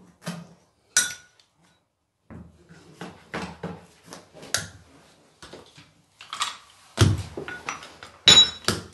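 Metal carpet-fitting hand tools knocking, tapping and clinking against the carpet edge and floor in irregular strikes, with a few heavier thumps near the end as a carpet knee kicker is set against the carpet.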